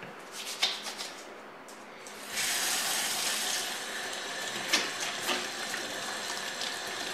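Kitchen tap running into a stainless steel sink as hands are washed under it; the flow comes on about two seconds in and stays steady, with a few light clicks and splashes.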